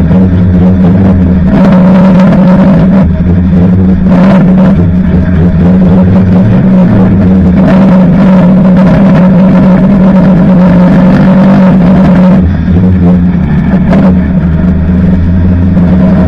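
Banger racing car's engine heard from inside the stripped cabin, very loud, running hard on the track with the throttle opening and easing off every few seconds, with a few brief knocks from the car.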